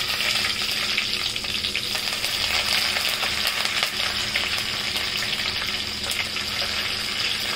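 Fresh curry leaves and fennel seeds sizzling in hot sesame oil in a stainless steel pot during tempering: a steady hiss with many small crackles.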